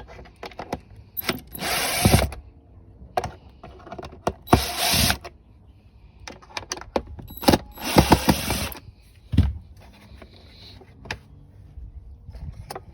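Cordless drill/driver backing out the three screws from a tail light housing in three short runs, with clicks and knocks of handling the parts between them.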